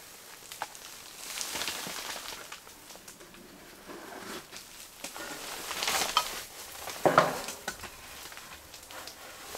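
Small kindling fire of birch bark and wood splits catching in a stainless steel tent wood stove: it crackles and hisses, with scattered sharp snaps and a few knocks and rustles as the wood is handled.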